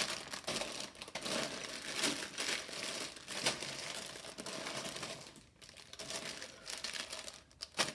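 Sealed plastic bags full of Lego Technic parts crinkling and rustling as they are picked up and moved, with a brief lull a little past halfway.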